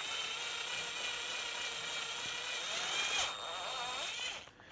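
Ingco cordless drill running unloaded with a steady motor whine. The pitch dips briefly and recovers about three seconds in, and the drill stops near the end.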